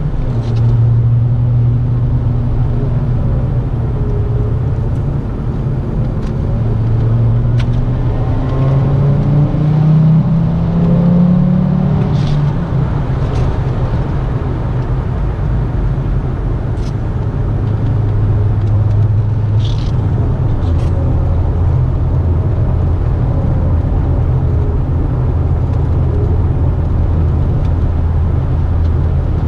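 Audi S6 engine running under way with turbocharger whine, the engine note climbing in pitch about a third of the way in, then dropping and settling lower and steady.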